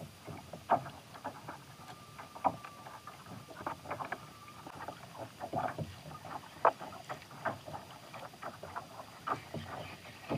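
Water lapping against a kayak hull in small, irregular slaps and splashes, with no steady rhythm.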